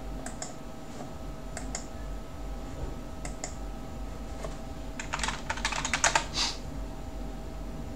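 Computer keyboard typing: a quick run of keystrokes about five seconds in as a short password is entered, the loudest part. It is preceded by a few separate pairs of light clicks, likely from a mouse.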